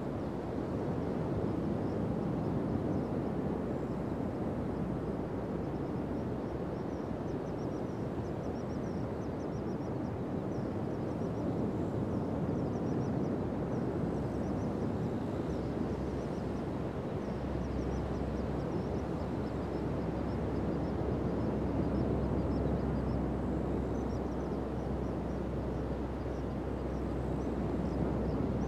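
Pacific surf breaking and washing up a sandy beach, a steady, unbroken wash of waves. Faint high chirping runs through it, and a low rumble joins about halfway through.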